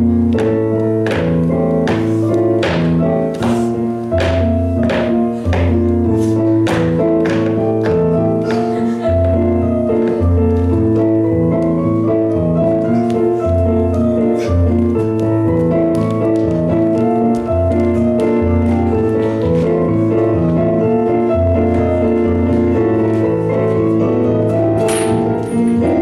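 Piano music with a steady beat and a moving bass line.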